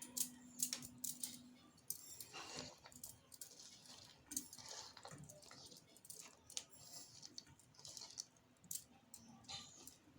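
Chopped vegetable momo stuffing (cabbage, onion, green chilli, ginger and carrot) being mixed in a bowl: faint, scattered soft clicks and rustles.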